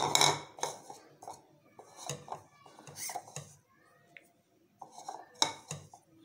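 Plastic bowls knocking and clattering as chopped spring onions are tipped from one bowl into another. The irregular clatters are loudest in a sharp knock at the start and another about five seconds in.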